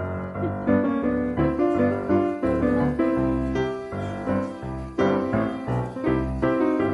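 Background piano music, a run of struck notes at a steady pace.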